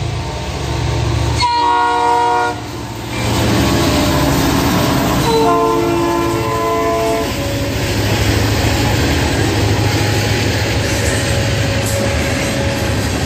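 Locomotive air horn sounding two chord blasts over a passing train: a short one about a second and a half in, then a longer one at a lower pitch about five seconds in. After that comes the steady rumble of the train rolling by.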